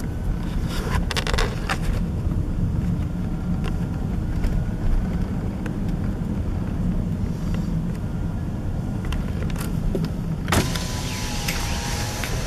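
Car engine and tyres giving a steady low rumble, heard from inside the cabin at slow speed, with scattered light clicks. About ten and a half seconds in, a power window goes down with a short motor whine, and the outside road and truck noise comes in louder and hissier.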